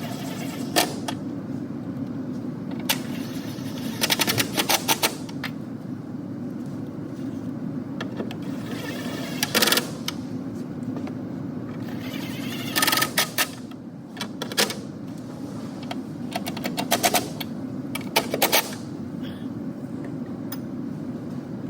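Ratchet wrench clicking in several short runs of rapid ticks as bolts are run in, over a steady low hum.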